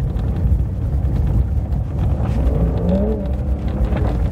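Porsche 911 Dakar's twin-turbo flat-six driving over loose quarry gravel: a loud, steady low rumble of engine and tyres, with a brief rising engine note about two and a half seconds in.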